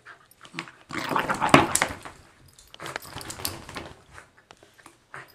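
Small dog playing with a rope toy: a loud burst of scuffling and scrabbling about a second in, and a weaker patch of scuffling a little past the middle.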